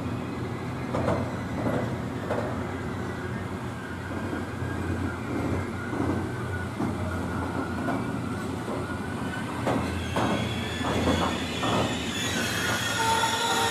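A train running past on the track with a steady rumble. The wheels clack over rail joints in groups, and a high wheel squeal sets in near the end.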